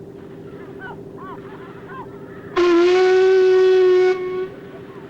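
A loud, steady horn-like blast lasting about a second and a half, starting about two and a half seconds in and trailing off more softly, over a continuous low hum.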